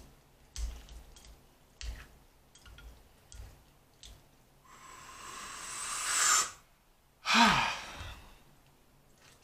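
Chopsticks clicking lightly against a ceramic bowl as ramen noodles are stirred, five small taps. Then a long breath drawn in, growing louder for about two seconds and stopping sharply, followed by a sigh with a falling hum.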